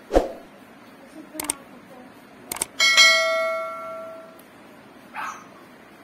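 A puppy gives a short bark just after the start. About two and a half seconds in come two clicks, then a bell chime that rings and fades out over about a second and a half: the sound effect of a subscribe-button animation. A brief puppy yip follows near the end.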